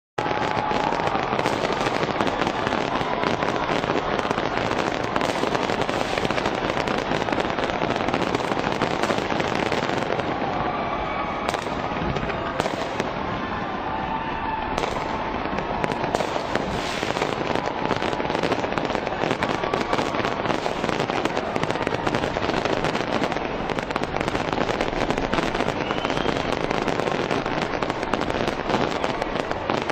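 A large fireworks display going off in rapid, continuous succession: dense crackling and popping of many bursts overlapping, without a break.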